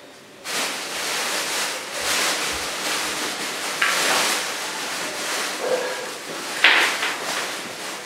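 Rubbing and scraping noise, with two sharp knocks about four and seven seconds in.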